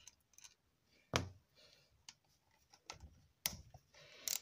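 Scattered metal clicks and taps as an Allen key is fitted into and turns 5 mm cap-head screws on a cast gearbox cover, with one heavier knock about a second in.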